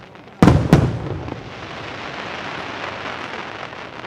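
Aerial firework shells bursting high overhead: two sharp, loud bangs about a third of a second apart, each trailing a low rumbling echo that fades into a lingering hiss.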